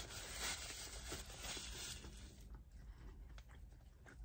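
Faint rustling and small crackles from handling and eating a sandwich in a paper wrapper, fuller for about the first two seconds and then thinning to a few small clicks.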